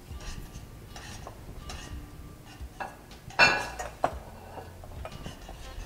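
Metal tongs clinking and scraping against a stainless steel sauté pan as pasta is tossed in sauce, with one loud ringing clank about three and a half seconds in.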